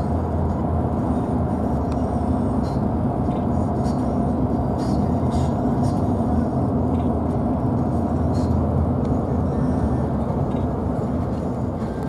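Steady rumble of a moving vehicle: engine and road noise, even throughout.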